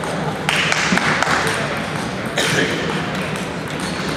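Celluloid-style table tennis balls clicking off paddles and tables, a few sharp ticks, against the steady noise of a large sports hall with several tables in play.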